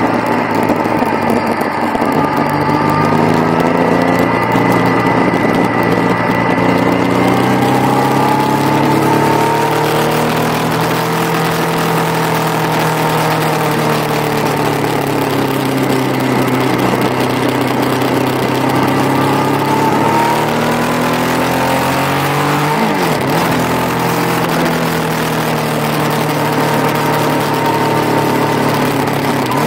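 Motorcycle engine on track, its pitch rising under acceleration and falling off again several times over as it works through corners, with one quick sharp dip about two thirds of the way through. Wind noise runs underneath.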